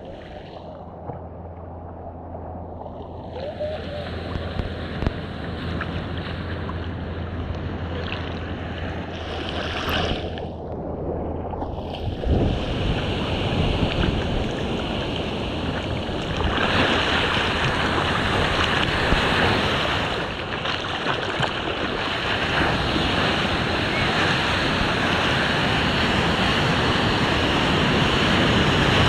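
Ocean water sloshing and lapping around a GoPro held at water level, with wind on the microphone. The sound goes muffled a few times in the first twelve seconds, then turns into a steady, fuller rush of water and wind.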